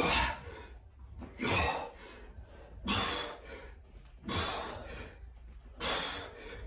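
A man breathing hard from exertion during V-sit repetitions: five forceful breaths, about one every second and a half, one with each rep.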